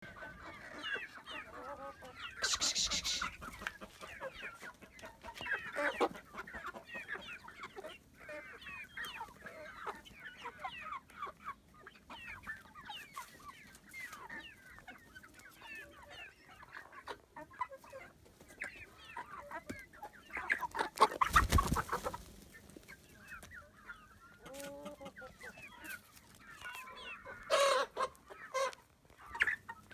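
A flock of brown hens clucking and chattering continuously, with a few louder bursts, the loudest about two thirds of the way through.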